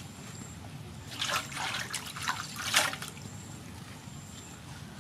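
Wet leafy greens being handled and set down in a woven bamboo basket, with water trickling and dripping off them: a few short splashy rustles about one to three seconds in, the loudest just before the three-second mark.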